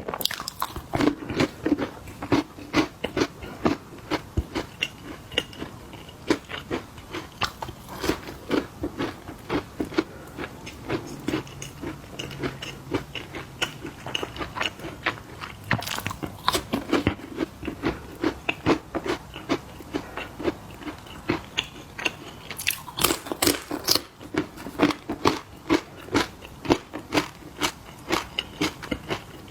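Crunchy snacks being bitten and chewed close to the microphone: a fast, irregular run of crisp crunches, with a few louder bites about halfway through and again near the end.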